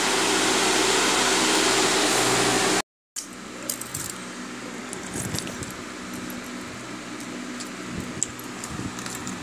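A steady hiss with a low hum for about three seconds, cut off abruptly. After a short gap come faint clicks and soft knocks of fingers mixing fish curry and rice in a steel bowl.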